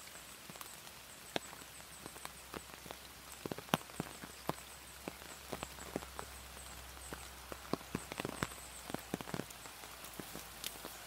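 Raindrops striking close to the microphone in sharp, irregular ticks over a steady hiss of rain and the flowing river.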